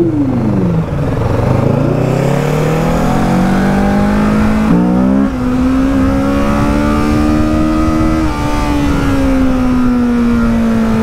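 Motorcycle engine, presumably the rider's Kawasaki Ninja 650 parallel twin, pulling under throttle while riding. Its pitch climbs for the first few seconds, jumps higher about five seconds in, holds almost steady, then eases off slowly near the end.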